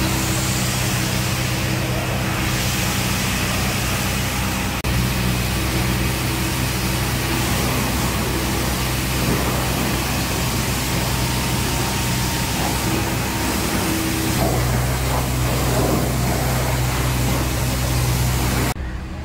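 Pressure washer running: a steady motor hum under the hiss of the water jet spraying a car, with the mix changing abruptly twice.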